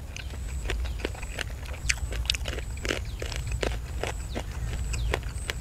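Close-miked chewing and mouth smacking of a person eating grilled chicken thighs: irregular wet clicks and smacks, several a second, over a steady low rumble.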